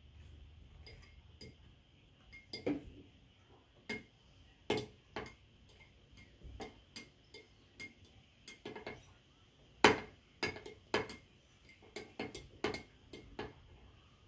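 Metal spoon clinking against a small glass bowl while soap and food coloring are stirred: irregular clinks, one or two a second, the loudest about ten seconds in.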